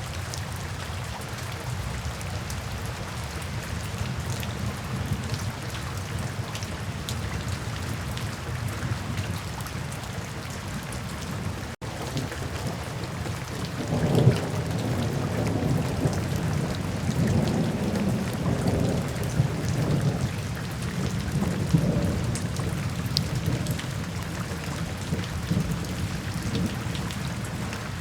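Steady rainfall. After a brief dropout about twelve seconds in, low rolling rumbles of thunder swell over the rain several times.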